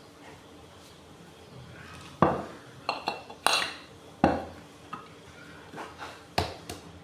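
Metal tools and water-pump parts clanking: a run of about eight sharp, irregular metallic knocks starting about two seconds in, with a couple of the loudest strikes early in the run.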